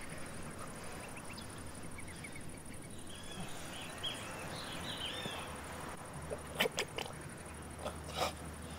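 Countryside ambience with birds chirping around the middle, then a few short, sharp animal calls near the end, the loudest sounds here.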